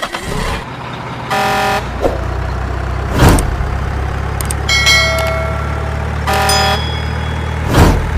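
Cartoon-style vehicle sound effects: an engine running steadily with two short horn honks, a held tone in between, and two loud thumps.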